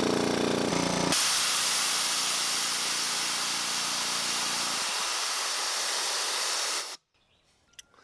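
Electric air compressor running, then about a second in its tank's 115 PSI blow-off safety valve pops open and vents air with a loud, steady hiss as the pressure reaches just under 120 PSI. The motor hum fades under the hiss, and the hiss cuts off suddenly about a second before the end.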